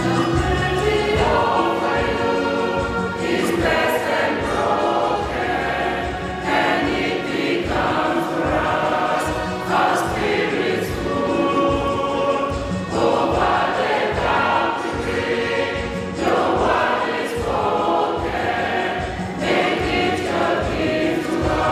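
Choir singing in phrases, with no speech over it.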